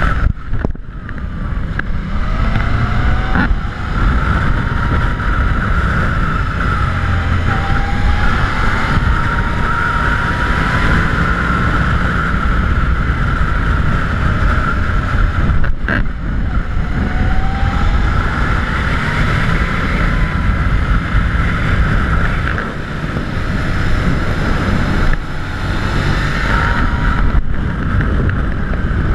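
Wind buffeting the microphone of a GoPro mounted on a moving bike, a loud steady rush, with a faint whine that rises slowly and drops back several times. Two sharp knocks, one a few seconds in and one about halfway through.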